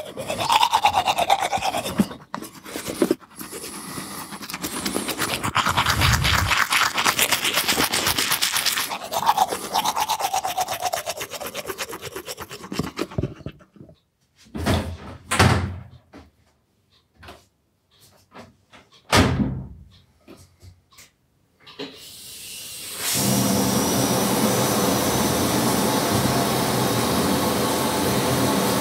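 Teeth being brushed with a toothbrush, a dense scrubbing of quick strokes; then a few short, separate sounds with pauses between them; about 23 seconds in, a shower is turned on and runs with a steady rush of water.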